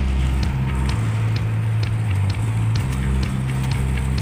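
Background music with a steady beat: deep bass notes changing pitch every half second or so under a regular light tick.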